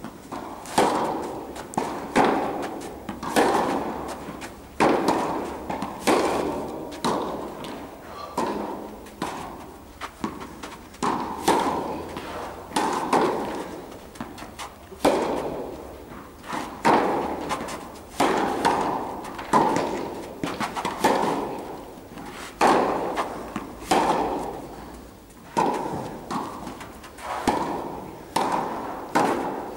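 Tennis ball being struck back and forth by rackets in a baseline rally, with sharp hits and bounces about every second, each echoing in the indoor tennis hall.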